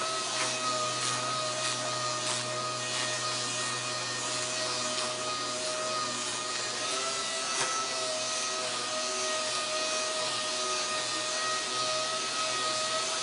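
6-inch random orbital hook-and-loop sander with a foam-backed 150-grit disc running steadily while scuff-sanding a carbon fiber race wing: an even whine with the hiss of the abrasive rubbing the surface.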